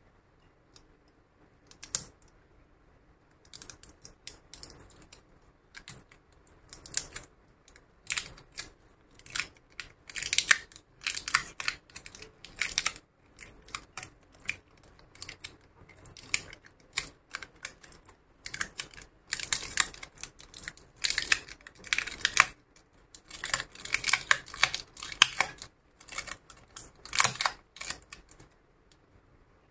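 Dense runs of small clicks and crackles from hands and tweezers working at the edge of a laptop LCD panel, around its connector board, coming in clusters that are loudest in the second half.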